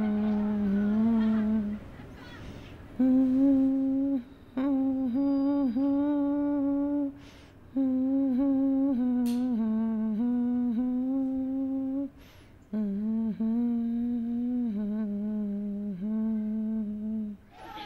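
A woman humming a slow tune in long held notes, phrase by phrase with short pauses for breath between them.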